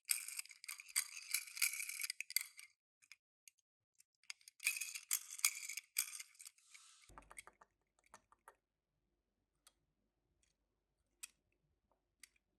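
Plastic packaging of small die-cast toy cars crinkling as it is handled and opened, in two spells of crackling, the second starting about four and a half seconds in, followed by a few faint clicks.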